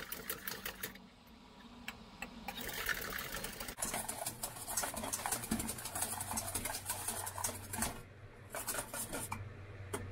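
Wire balloon whisk beating egg whites into meringue in a stainless steel bowl: fast, rhythmic clattering of the wires against the bowl and through the foam, easing briefly about a second in and again near the end.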